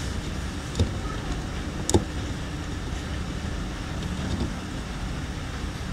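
Steady low hum and background noise, with two short clicks about one and two seconds in.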